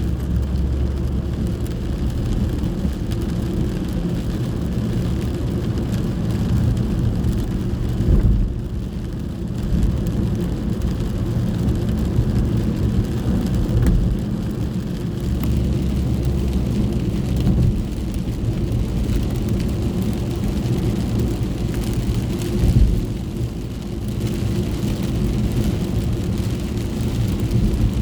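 Steady low rumble of a moving car heard from inside the cabin, with rain on the car, and a few brief louder thumps.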